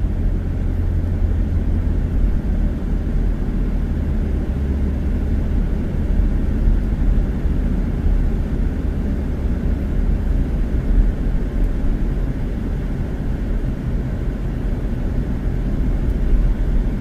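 A car driving along a road: a steady low rumble of road and engine noise.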